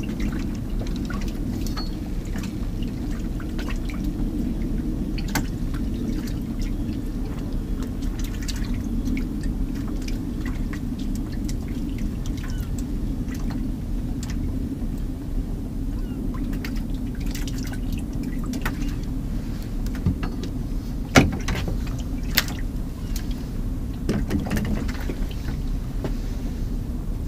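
Water lapping and sloshing against the hull of a small drifting boat, a steady low rumble, with scattered light clicks and knocks from handling the rod and gear; two sharper knocks come about two thirds of the way in.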